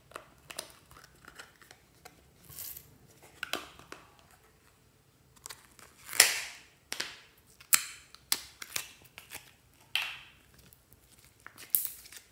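Plastic slime container's lid being pried at and pulled off by hand: a string of short clicks, snaps and crackles of thin plastic, the loudest about six seconds in.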